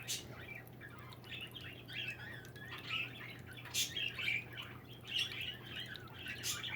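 Songbirds chirping and calling continuously, with a few sharp clicks over a low steady hum.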